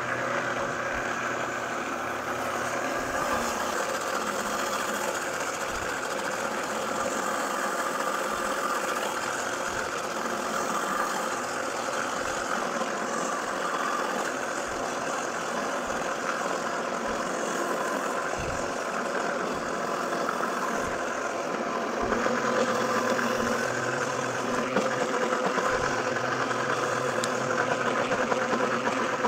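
Countertop blender motor running steadily, blending fresh herbs, yogurt and oil into a wet green chutney. It gets a little louder about twenty-two seconds in.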